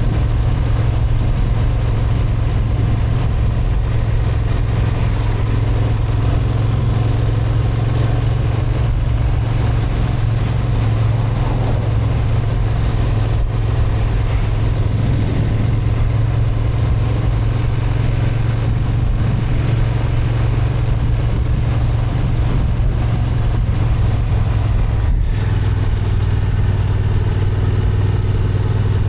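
Honda XL750 Transalp's parallel-twin engine (35 kW restricted version) running at a steady pace under way. The note shifts a little lower near the end.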